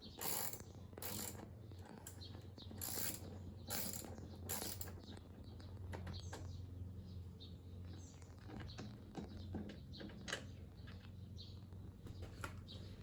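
Ratchet socket wrench with a 5 mm Allen-head socket clicking as it unscrews a bolt: five bursts of ratcheting about a second apart, then scattered lighter ticks and clinks.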